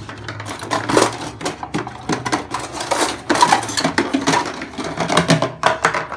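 Irregular clattering and clinking of kitchenware being handled, a quick, uneven run of sharp knocks and clicks.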